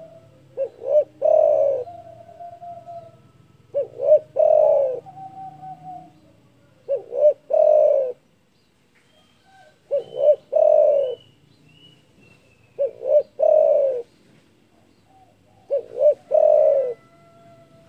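Spotted dove (derkuku) cooing a repeated three-note phrase, two short notes followed by a longer drawn-out coo, six times at about three-second intervals.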